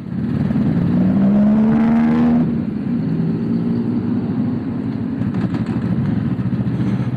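Motorcycle engine accelerating, its pitch rising for about two seconds, then dropping back and running steadily.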